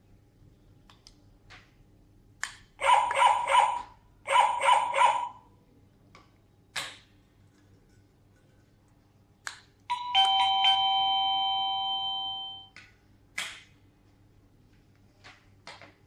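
Wireless doorbell receiver chiming as transmitter buttons are pressed while it is being paired: two short bursts of rapid chiming tones about three seconds in, then a two-note ding-dong about ten seconds in, high note then low, fading over two seconds. Sharp clicks of buttons and plastic units being handled fall between.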